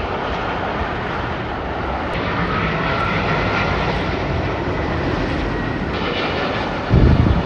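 Jet airliners on final approach to land: a steady rushing engine noise, with a faint high whine over a couple of seconds partway through and a brief low thud near the end.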